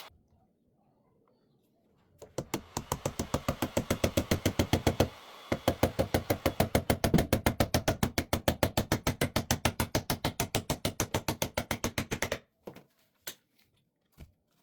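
A rapid, even series of sharp knocks, about seven a second, starting about two seconds in and going on for some ten seconds with one short break, then a few scattered knocks near the end.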